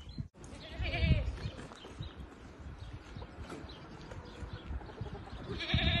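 Goat bleating twice, a wavering, quavering call about a second in and another near the end.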